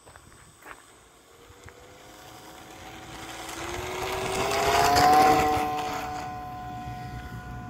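Modelhob Fénix RC model plane's motor and propeller whining as it throttles up for its takeoff run. The whine rises in pitch and loudness, is loudest about five seconds in as the plane passes close, then holds a steady high pitch.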